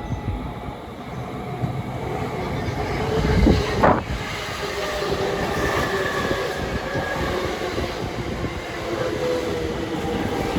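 Chuo-Sobu Line local electric commuter train running along a station platform: steady wheel-on-rail noise with a held motor whine. A brief sharp sound sweeps up and back down in pitch about three and a half seconds in, the loudest moment.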